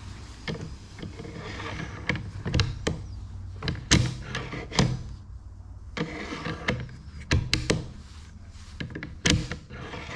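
Bolt of a stainless Tikka T3X Varmint .223 rifle being worked repeatedly. Metal slides as the bolt is run back and forward, with sharp clicks and clunks as it opens and locks closed.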